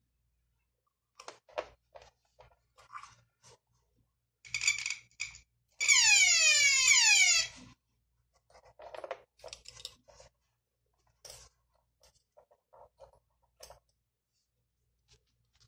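Electric buzzer in a 12 V conductivity-test circuit sounding as the circuit is closed: a short buzz, then a loud buzz of about a second and a half whose pitch slides downward. Small clicks of wires being handled and touched together come before and after.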